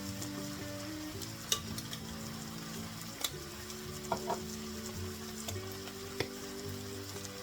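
Food sizzling as it fries in a pan, with a few sharp clicks of a utensil against the pan as it is stirred, the loudest about one and a half seconds in. Background music plays underneath.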